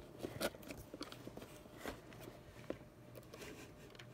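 Faint, scattered clicks and taps as rubbery figure bag clips on pink plastic clips are handled and stood up on a tabletop.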